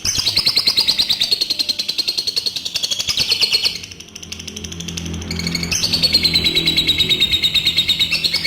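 Adult lovebird giving its long ngekek, a fast rattling chatter of rapid high pulses, in two long runs: the first ends about three and a half seconds in, and after a brief softer stretch the second starts about two seconds later.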